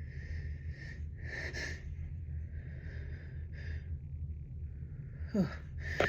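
A congested nose sniffing and breathing in short breathy pulls as a sneeze builds. Near the end these turn into a gasp that falls in pitch. A steady low hum runs underneath.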